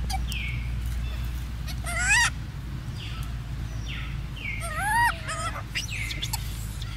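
Two high-pitched, wavering animal calls, one about two seconds in and a longer one near five seconds, with a few short falling chirps between them over a steady low hum.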